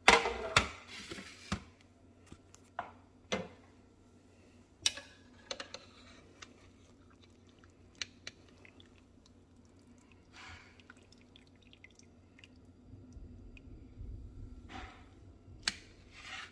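A metal sheet pan set down on the counter with a clatter, then metal tongs clicking against the slow cooker's stoneware crock and wet squelching as a fork-tender braised beef chuck roast is lifted out of the broth and laid on the pan.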